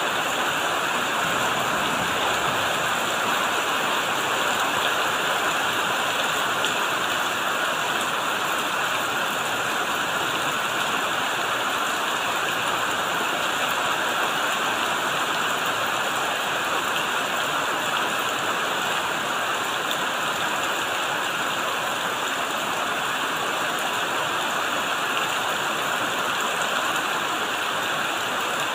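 Steady rain falling on banana leaves and a shed roof, an even hiss that holds at the same level throughout.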